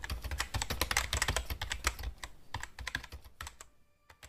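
Computer keyboard typing: a rapid run of key clicks that thins out and stops about three and a half seconds in, with a couple of last clicks near the end.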